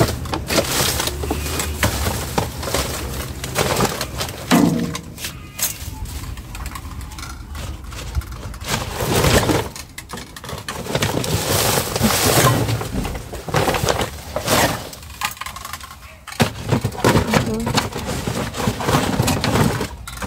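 Plastic bags and rubbish rustling and crinkling as they are pushed around with a grabber tool and a gloved hand, in irregular bursts with a few sharp knocks and crackles.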